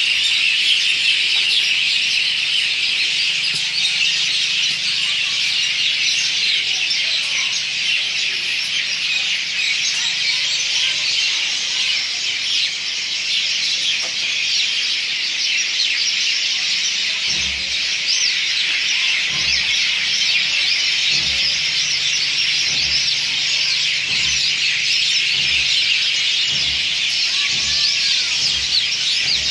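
A dense chorus of many birds chirping and squawking at once, a continuous overlapping mass of high calls with no single bird standing out.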